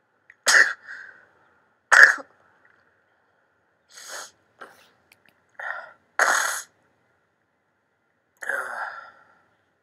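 A man sneezing again and again: about seven short, sharp bursts over nine seconds, the first two the loudest.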